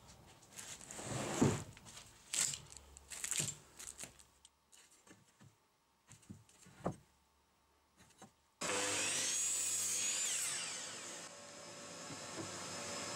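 Pine boards knocked and shuffled on a wooden workbench, a few separate clunks, then an electric miter saw starts abruptly more than halfway through and runs steadily with a high whine.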